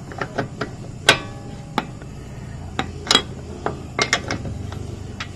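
A run of sharp metal clinks and knocks from a steel wheel brace on the wheel nuts as the nuts are loosened; the loudest comes about a second in and rings briefly.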